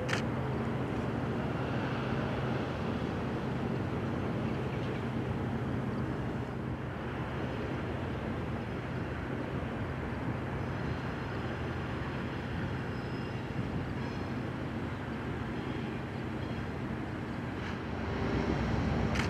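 GE P42DC diesel locomotive, with its V16 diesel engine, running steadily as it slowly pulls a short train, a low hum under a rumble. The sound grows louder near the end, with rising engine tones.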